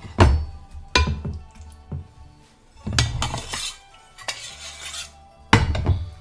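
A metal utensil clanking and scraping against a pan as marinara sauce is spooned over breaded chicken, with about four sharp knocks and scraping between them.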